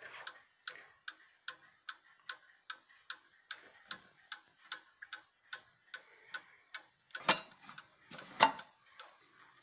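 The pendulum movement of an 1896 Gilbert black mantel clock ticking steadily, about two and a half even ticks a second. Two louder knocks about a second apart come near the end as the clock case is handled.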